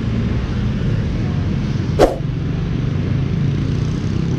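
Motor scooter engine idling as a steady low rumble, with one sharp click about two seconds in.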